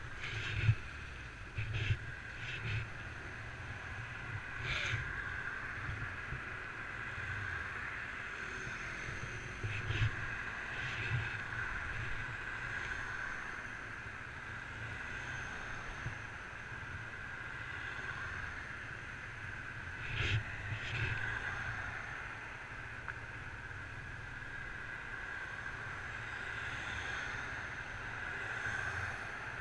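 Honda CBR125 single-cylinder four-stroke engine idling steadily while the motorcycle waits stationary, with other cars swelling past a few times.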